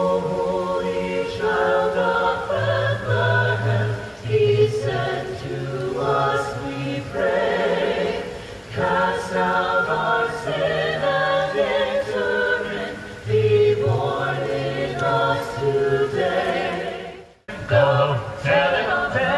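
A choir of carolers singing together in harmony, in long held phrases with short breaths between them. Near the end the singing cuts out for an instant and then picks up again.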